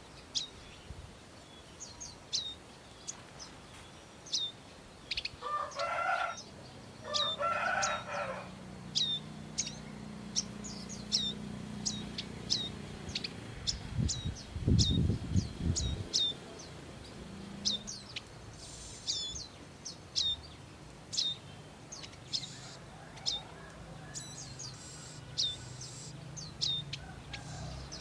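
Prinia giving a sharp, high, down-slurred chirp over and over, about once a second. Two lower, harsher calls come at about six and eight seconds in, and a brief low rumble falls near the middle.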